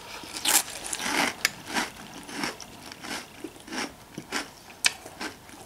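Close-up chewing of a mouthful of sweetened cereal in milk: a steady run of crisp crunches, about two a second.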